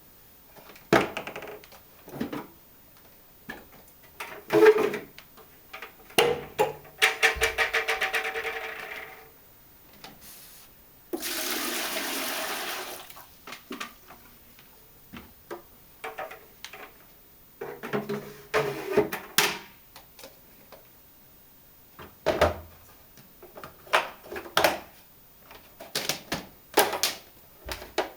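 Liv Aquafilter 2000 water-filter vacuum cleaner being handled, with scattered clicks and knocks of its parts and water sloshing. A rapid rattling run comes about seven seconds in, and a steady rush of water lasts about two seconds near the middle, starting and stopping abruptly.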